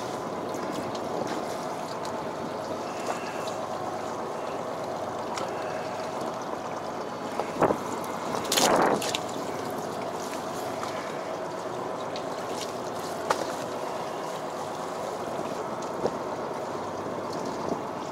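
Steady hum of a fishing boat's machinery with water washing along the hull, broken by a few sharp clicks and one louder, brief burst of noise about eight and a half seconds in.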